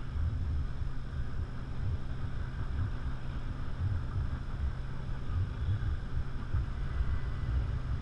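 Wind buffeting the microphone of a camera carried aloft under a parasail: a steady rushing hiss over a gusty, uneven low rumble.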